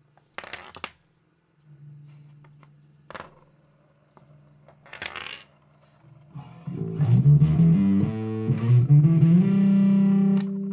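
Guitar music: a few low notes ringing out with sharp clicks between them, then from about six seconds in a loud guitar passage over a bass line.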